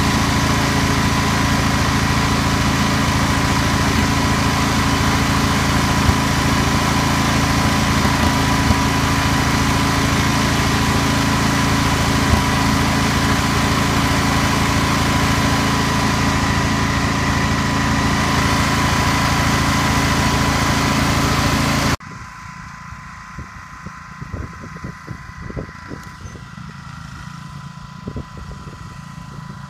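Wheel Horse riding mower's engine running steadily at close range while it heats a muffler-mounted homemade fogger. About two-thirds of the way in, the sound cuts suddenly to the mower heard from far off, much quieter, with irregular low bumps.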